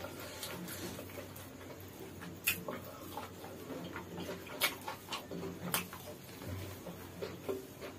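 Close-up eating sounds: chewing and wet mouth smacks with a few sharp clicks, and flatbread being torn apart by hand on a banana leaf.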